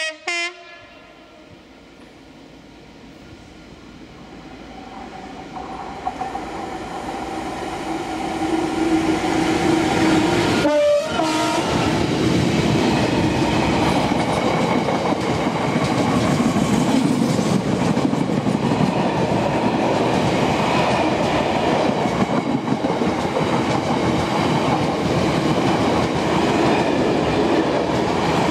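Freight train horn giving a short blast, then the train's noise building as it approaches. A long rake of covered hopper wagons then rolls past at speed with a steady rumble and wheel clatter.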